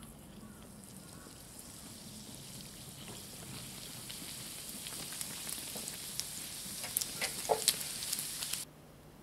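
Hot oil at 170 °C sizzling around raw yeast-dough donuts frying in a pan, the hiss growing louder as more dough goes in, with sharp pops and crackles in the last few seconds. It cuts off abruptly shortly before the end.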